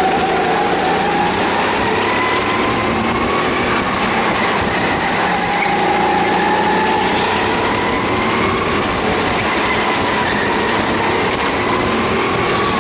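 Go-kart engine running hard, heard from on board, its pitch rising and falling slowly as the kart accelerates and eases for corners.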